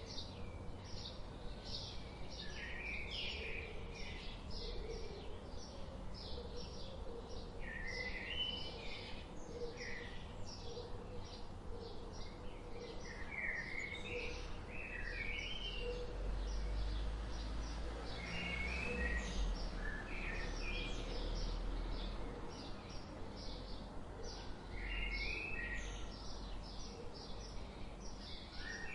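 Birds chirping and singing without pause, mostly quick high chirps several times a second with occasional short warbling phrases, over a steady outdoor background hiss. A low rumble rises partway through and fades again.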